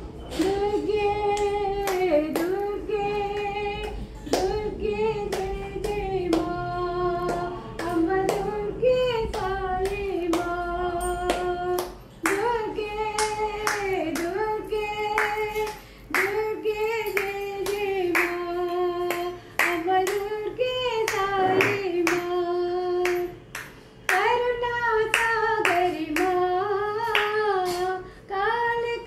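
An elderly woman sings a Durga devotional song solo, in sung phrases with short breaths between them, with steady hand-clapping keeping time throughout.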